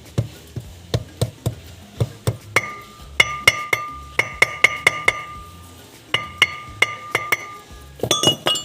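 Hammer striking metal in steady blows, about two to three a second. From about two and a half seconds in, the blows ring with a clear metallic tone. Near the end there is a quick cluster of lighter clinks.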